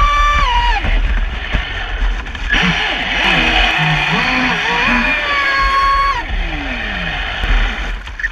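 Traxxas Spartan RC boat's brushless electric motor whining, its pitch rising, holding high and falling away as the throttle is opened and released, with a long sliding drop in pitch as the boat slows.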